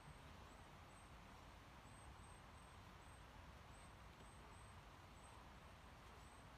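Near silence: faint background hiss, with a faint high-pitched chirp repeating about twice a second.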